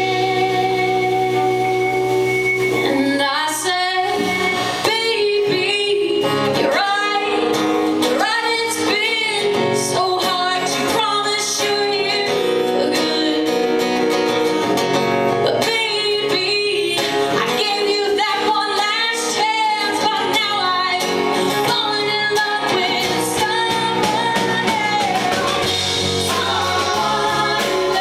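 Live band music with guitar, and a woman singing the melody that comes in about three seconds in.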